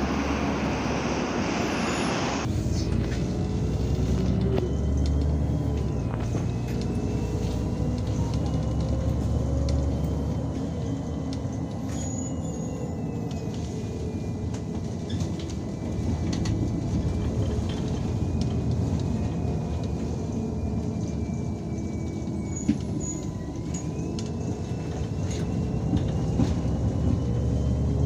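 Irisbus Citelis 12M city bus heard from inside while it drives: its Iveco Cursor 8 diesel engine and Voith automatic gearbox run with a low drone that shifts with speed, and a thin high whine slowly rises and falls. For the first couple of seconds there is only a steady street hiss of passing traffic, which cuts off abruptly.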